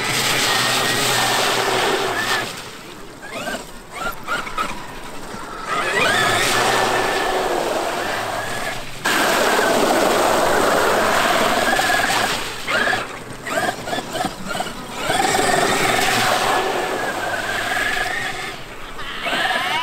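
Traxxas X-Maxx brushless electric RC monster truck driving through a muddy puddle: its motor whine rises and falls with the throttle over water splashing, the spray heaviest about halfway through.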